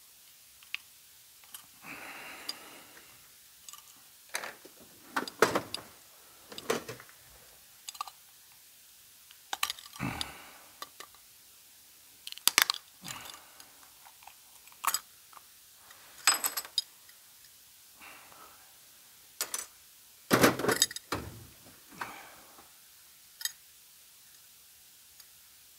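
Pliers working apart a small automotive boost gauge: irregular metallic clicks, clinks and scrapes, with a few louder knocks.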